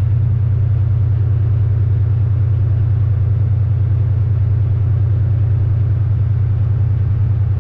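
Volvo VNL semi truck's diesel engine running at low speed, a steady low rumble.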